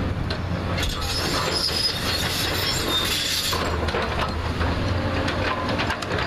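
JCB backhoe loader's diesel engine running steadily as it digs, with a high scraping squeal from about one second in until past the middle, and scattered knocks of earth and stones.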